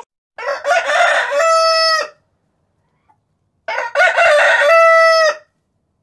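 Rooster crowing twice, each crow about a second and a half long and ending on a long held note.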